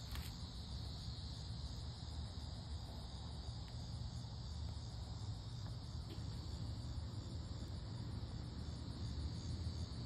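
Insects chirring steadily in the background, with a low steady rumble underneath.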